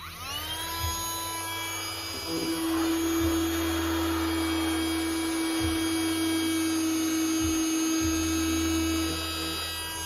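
Baseus C2 capsule mini vacuum cleaner switching on, its small battery motor spinning up with a rising whine. It then runs steadily with a high whine and a rush of air as it sucks up cookie crumbs. A deeper steady tone joins about two seconds in and fades near the end.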